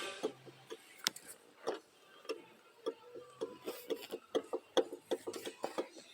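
Irregular light clicks and knocks from a power steering pump's pulley and shaft being worked by hand with the engine off. The clicks come closer together after about three and a half seconds. They are the sign of play in the pump shaft.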